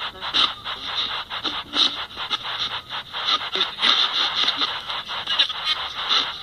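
Cosmos CT spirit-box app playing through a phone speaker: rapid choppy bursts of static-like noise and fleeting voice-like snippets, several a second. The user hears them as answers, captioned 'Riding my bicycle' and 'I'm a big fan of the Rams'.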